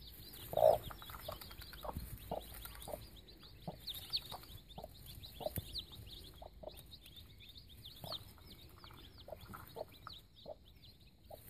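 A brood of baby chicks peeping constantly in short high cheeps, while their mother hen clucks low every second or so, with one louder cluck about half a second in.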